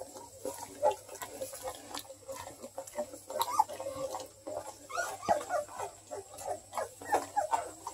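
Two-week-old Bluetick Coonhound puppies making many short, soft squeaking calls, one after another.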